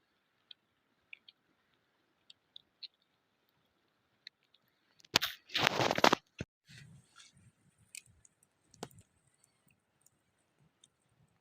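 Campfire crackling with scattered sharp pops, and about five seconds in a loud crunching that lasts about a second.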